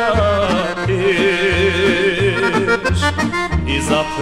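Instrumental passage of a 1970s Serbian folk song: an accordion plays a melody full of quick trills over bass notes pulsing about twice a second.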